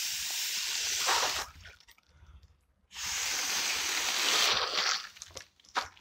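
Two long breaths blown through a drinking straw into a foil letter balloon's valve, each a steady rushing hiss, with a pause of about a second and a half between them as the balloon re-inflates.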